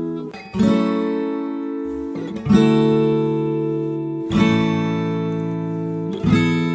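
Background music: a solo acoustic guitar instrumental, a chord strummed about every two seconds and left to ring and fade.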